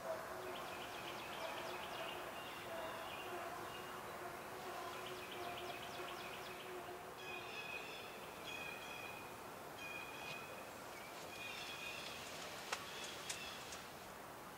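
Faint spring woodland ambience: songbirds repeating short song phrases. A faint, steady low hum runs through the first half. Two sharp clicks or twig snaps come close together near the end.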